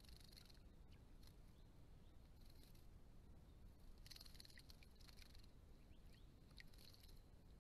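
Faint short fluttering splashes, several in turn, from small finches (diamond firetails) bathing and moving among the plants in shallow pond water, over a low steady hiss.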